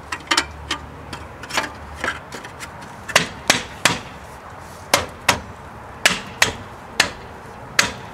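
A wheel hubcap being knocked into place on the wheel by hand: a string of sharp smacks, a few a second and unevenly spaced, as it is seated and clipped on around the rim.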